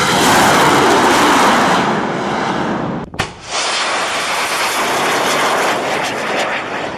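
A homemade rocket firing from its launcher: its motor makes a loud, steady rushing noise. The noise breaks off for an instant about three seconds in, then carries on a little quieter.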